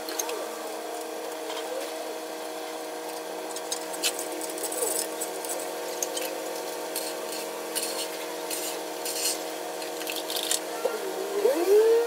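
Small clicks and taps of parts and hand tools being handled during a power-tool repair, over a steady hum, with a few short squeaks near the end.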